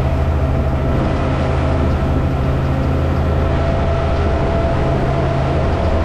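Twin Suzuki DF200APX four-cylinder outboard motors running steadily with the boat under way: a steady tone over a loud, even rush.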